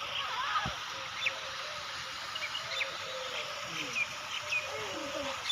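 Outdoor bird ambience: scattered short high chirps from birds over a steady background hiss, with faint distant voices.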